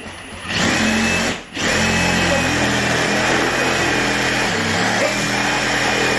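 Power saw running and cutting along the edge of the floor, with a short stop about a second and a half in before it cuts again.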